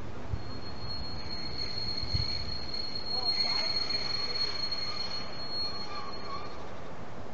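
Steel wheels of a slowly approaching diesel locomotive squealing against the rails: one steady high-pitched squeal that begins just after the start and stops about a second before the end.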